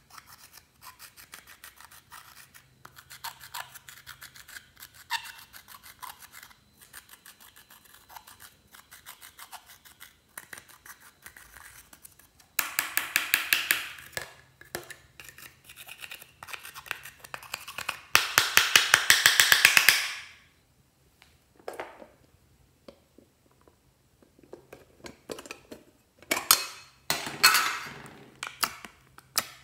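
Rapid, fine scratching of a pointed dotting tool scraping pressed eyeshadow powder out of a plastic palette. It grows much louder in two stretches about halfway through and in a few short bursts near the end.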